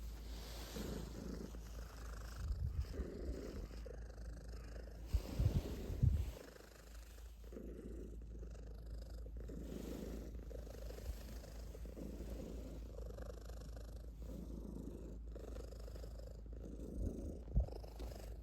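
Calico cat purring continuously up close, swelling and fading with each breath. A few soft low bumps come through, near the start, in the middle and near the end.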